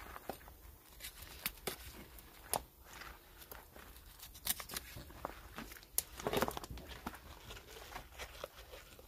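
Kitchen knife trimming fat from a raw whole duck on a wooden chopping block: scattered taps and knocks of the blade on the wood and the wet rustle and tearing of skin and fat as the carcass is handled, with one longer, louder rustle about six seconds in.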